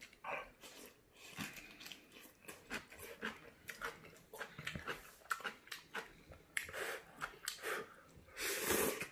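A person slurping seafood ramen noodles and kimchi and chewing, with many short wet smacks and a longer slurp near the end.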